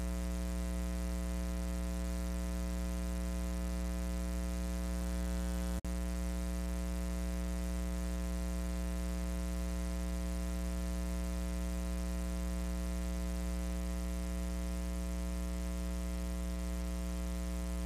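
Steady electrical buzz, a mains hum with many even overtones, running unchanged; it drops out for an instant about six seconds in.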